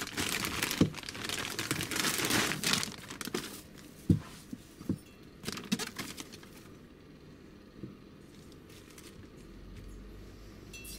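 Plastic bag crinkling and rustling as a scooter cylinder is unwrapped, with a few light knocks from the part being handled. The rustling dies away about six seconds in.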